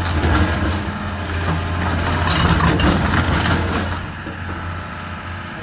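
A heavy demolition machine's engine running steadily while the house is torn apart, with a stretch of crunching and cracking debris in the middle.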